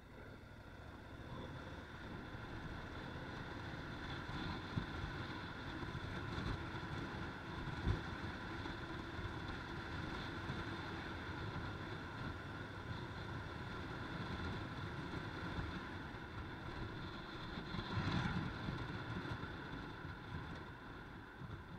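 Harley-Davidson FXLRS motorcycle under way: its engine runs beneath wind and road noise rushing past the microphone. The noise grows louder over the first few seconds, swells briefly near the end, then eases off.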